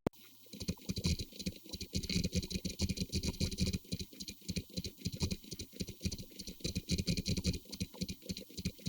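A machinery sound effect: a fast, uneven clatter of small mechanical clicks and rattles, starting about half a second in.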